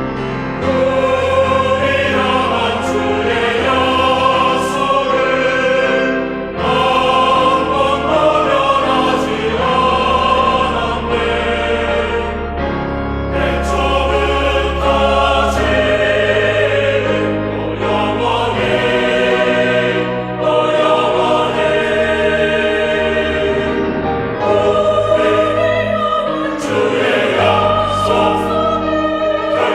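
Mixed choir singing a choral anthem in parts, with piano and organ accompaniment; the organ holds long low notes beneath the voices.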